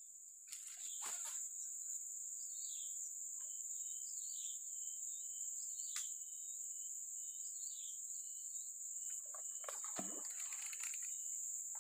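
Steady high-pitched insect drone, with short bird chirps now and then. There is a brief swish about half a second in and another around ten seconds in.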